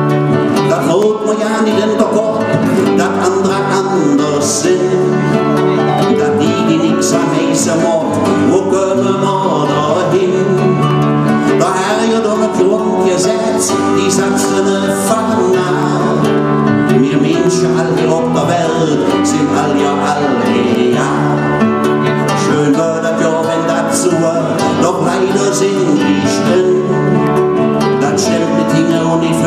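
Live performance of several acoustic guitars strummed together while men sing along into microphones, playing steadily without a break.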